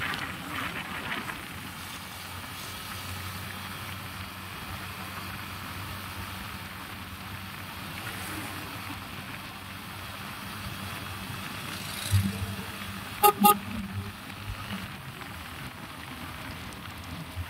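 Steady vehicle and road noise, with two short, quick honks of a vehicle horn about three-quarters of the way through, just after a brief low thud.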